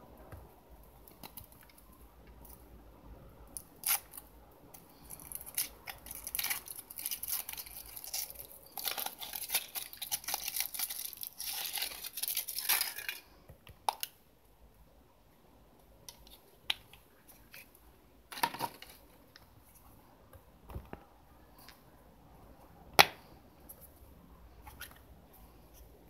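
Foil wrapper of a Kinder Surprise chocolate egg crinkling and rustling for several seconds as it is peeled off by hand. After it come a few scattered cracks and clicks, with one sharp loud snap near the end, as the chocolate shell is broken and the yellow plastic toy capsule is snapped open.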